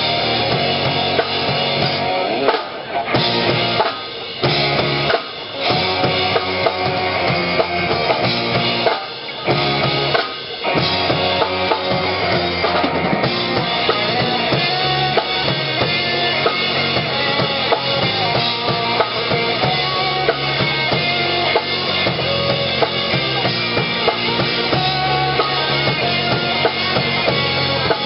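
Live four-piece rock band playing: two electric guitars, bass guitar and drum kit, with the drums prominent. The music drops out briefly several times in the first ten seconds, then plays on without a break.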